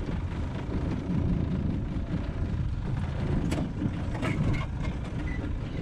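Low, gusty rumble of wind buffeting the microphone, with a few sharp clicks and knocks about three and a half to four and a half seconds in as mangrove branches and the aluminium boat are handled.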